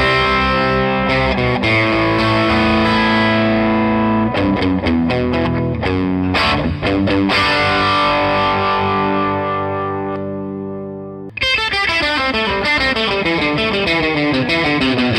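Electric guitar played through a 15-watt, two-EL84 valve amp in its natural overdrive mode with reverb, giving a mild crunch. Chords are held and left to ring and fade, then a quick run of single notes follows near the end.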